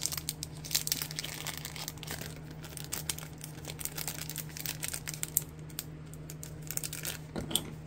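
Thin plastic packaging of a set of clear rubber-stamp-style stamps crinkling and crackling as fingers work at it, trying to get a stubborn pack open.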